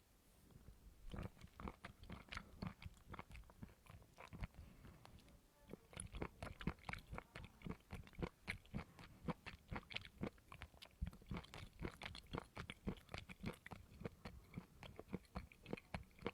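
Close-up chewing of coconut: quick, repeated crunchy bites and chews, several a second, with a short pause about five seconds in.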